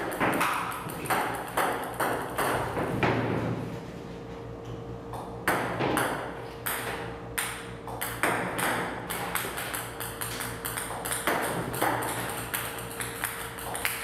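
Ping-pong balls fired by a table-tennis robot clicking as they bounce on the table, several a second, with a short lull about four seconds in. A steady low hum runs underneath.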